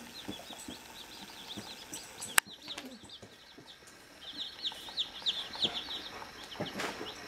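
Day-old chicks peeping: a steady stream of short, high cheeps that grows busier and louder in the second half. A single sharp click about two and a half seconds in.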